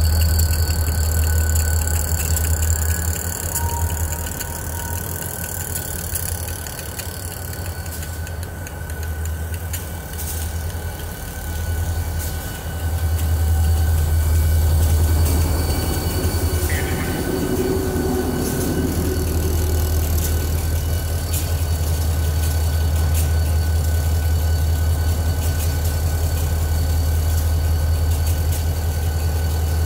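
Diesel-electric locomotive engines of New York, Susquehanna & Western switchers running with a deep, steady drone, easing off for a while and then coming back louder about halfway through.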